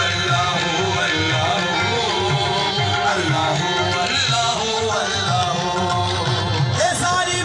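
Live qawwali music: harmoniums playing a wavering melody over a steady tabla rhythm.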